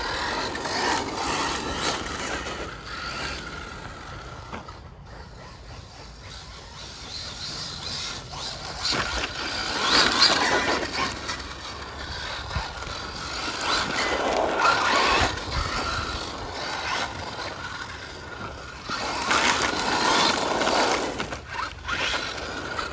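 FTX Zorro brushless RC car being driven, its motor and drivetrain whining and scraping in about four surges as it speeds up and slows. It carries a strange grinding noise that the owner thinks is a metal gear meshing on a plastic gear.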